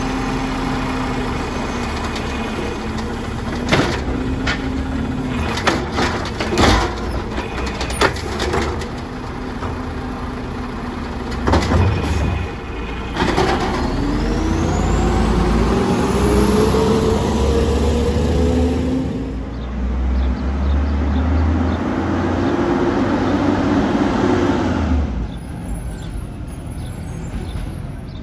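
Automated side-loader garbage truck working bins at the curb: its diesel engine runs steadily, with several sharp knocks and bangs. Twice the engine revs up with a rising whine as the hydraulics cycle.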